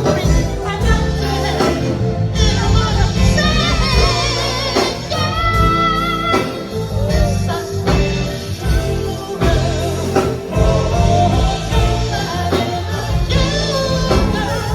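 Music with a singer: a wavering, soulful voice over a steady bass line and band accompaniment.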